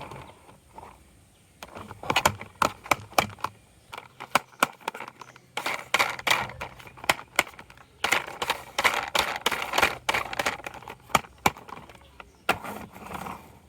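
Marbles rolling and clacking down a wooden HABA marble run: a quick, irregular run of sharp clicks and knocks, with stretches of dense rattling as several marbles roll together.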